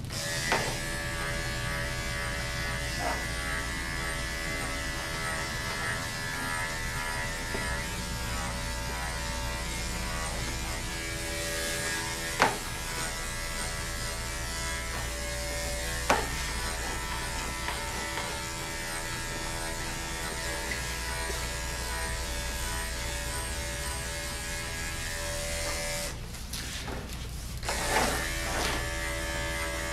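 Andis five-speed electric dog clipper running with a steady hum as it shaves a dog's coat, with a few sharp clicks, the loudest about twelve and sixteen seconds in. Near the end the hum stops for about a second and a half, then starts again.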